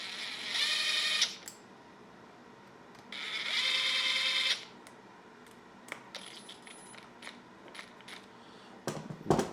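A cordless drill/driver with a bit extender spinning in two short runs a few seconds apart, each a steady motor whine. A few light clicks follow, and a sharp knock comes near the end.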